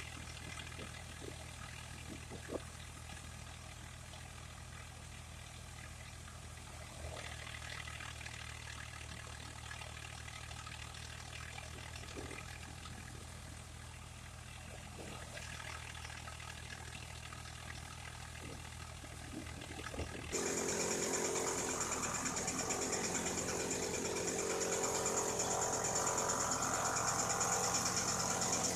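Swaraj 744 FE tractor's diesel engine running steadily while driving a wheat thresher, with a few knocks. About two-thirds in, the sound switches to a louder machine with a strong high hiss: a thresher blowing chopped straw out of its spout.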